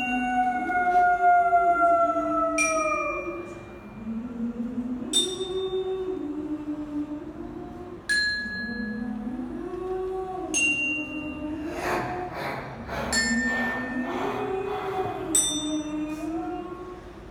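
Eerie slow, low melody moving note by note, with a bright chime-like struck note ringing out about every two and a half seconds. A long falling wail runs over the first few seconds, and a rattling noise joins around two thirds of the way through.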